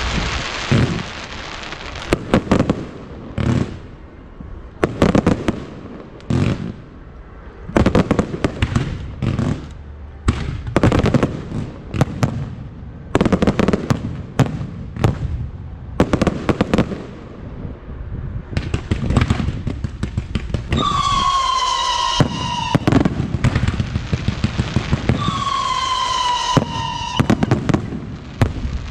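Aerial fireworks shells going off in irregular succession, each a sharp bang. About two-thirds of the way in, and again a few seconds later, a high whistle with a slightly falling pitch sounds for a second or two.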